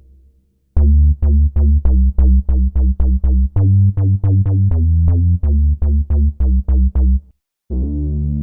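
MES Mini PWM pulse-width-modulation synthesizer playing a bass patch: a run of short, punchy low notes at about four a second that shifts pitch partway through, then a brief gap and a held low note near the end.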